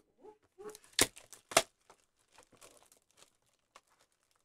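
Clear plastic shrink wrap being torn and crinkled off a sealed trading-card hobby box, with scattered crackles and two sharp, louder crackles about a second in and half a second later.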